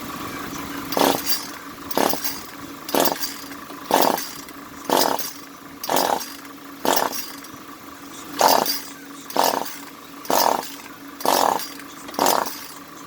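Echo CS-400 two-stroke chainsaw being pull-started over and over, about one recoil-cord pull a second, a dozen or so strokes, without the engine catching. The owner says it wants to go but isn't pumping.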